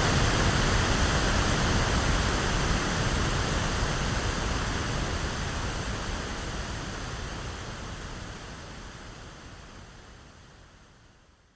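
Electronically generated pink noise: an even, static-like hiss weighted toward the lows, steadily fading out to silence by the end.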